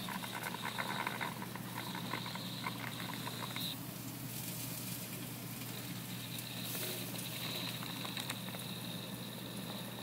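Faint crackling and patter of meat cooking inside a closed grill, over a steady hum and hiss. The crackles are thickest in the first few seconds.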